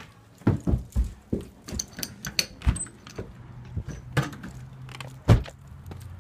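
Irregular knocks and clatter, the loudest about five seconds in, from a door being worked open and gone through while the phone is carried and handled.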